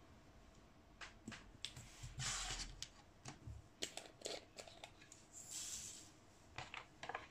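Faint clicks of a small plastic storage pot being picked up and opened, then a short rattle of pink resin diamond-painting drills poured into a plastic tray, with more light clicks as the pot and tray are handled.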